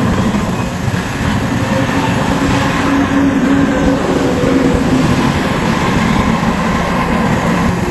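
Dump truck's heavy diesel engine running steadily, with a faint engine tone that shifts slightly in pitch.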